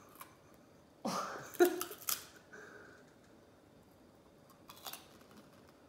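Crunching as a puffed-rice snack is bitten and chewed: a quick run of loud crunches about a second in, and a few more crunches near the end.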